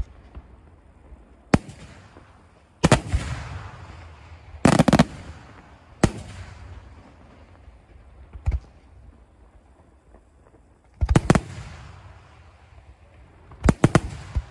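Aerial firework shells bursting overhead: sharp bangs at irregular intervals, some single and some in quick clusters of two or three, each trailing off in a rolling echo. The loudest cluster comes about five seconds in, and more clusters follow near the end.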